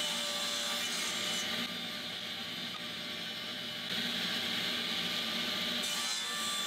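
Table saw running steadily as a frame board is fed past the blade on the miter gauge for a 45-degree miter cut, easing slightly for a couple of seconds midway.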